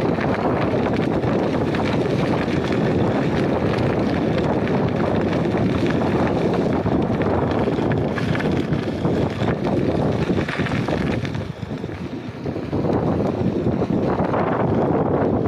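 Wind buffeting the microphone: a loud, gusting rumble that eases briefly about two-thirds of the way through.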